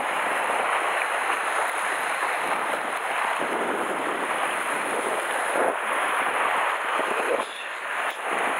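Sea surf washing and breaking against shore rocks, a steady rushing noise, with wind buffeting the microphone.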